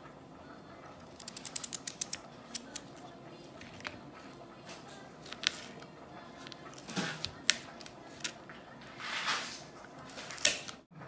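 Small kitchen knife slicing a raw carrot into thin planks on a cutting board: a quick run of about ten crisp knife clicks about a second in, then single cuts every second or so, with a short scraping swish near the end.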